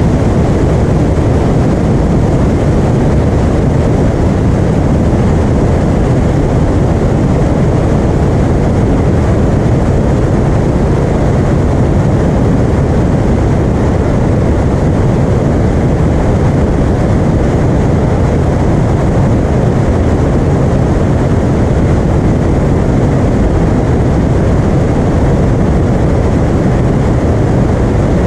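Piper Arrow single-engine propeller airplane in flight, its engine and propeller making a steady, loud drone with no change in pitch or level.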